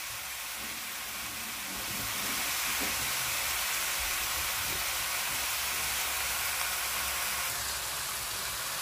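Cubed pork frying in oil in a stainless steel pan, a steady sizzling hiss as the meat sears unstirred.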